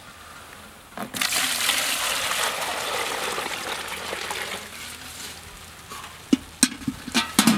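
Maple sap poured from a metal sap bucket into a plastic pail: a rushing splash starts about a second in and tapers off over the next few seconds. A few sharp knocks follow near the end.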